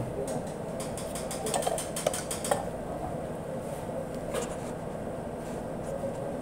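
Steady hum of commercial-kitchen air conditioning and refrigeration. A cluster of light clicks and taps about two seconds in, and another a little later, come from handling raw beef and bamboo skewers on steel sheet pans.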